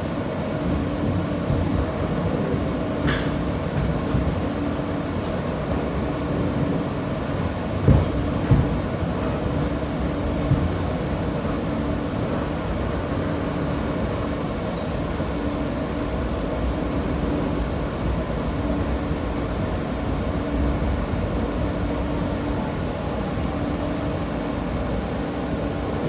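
New York City subway car heard from inside while running: a steady rumble with an on-and-off hum, and a few short thuds about eight and ten seconds in.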